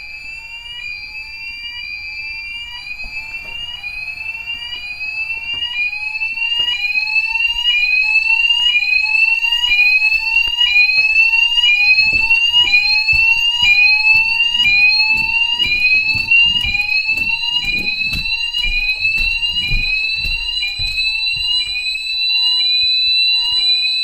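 Fire alarm sounders going off in full alarm, set off by smoke drawn into an aspirating smoke detector: a rising whoop repeated about once a second, with several sounders slightly out of step, over a steady high tone. The alarm grows louder over the first several seconds.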